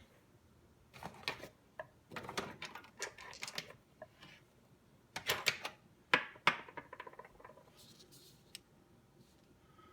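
Small metal lock parts clicking, rattling and scraping as a pin-tumbler lock is taken apart by hand. The handling comes in bursts, with the sharpest clicks a little past the middle, then stops about seven and a half seconds in.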